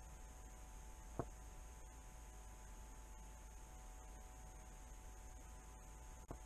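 Near silence: a faint steady hum and hiss, broken by two brief clicks, one about a second in and one near the end.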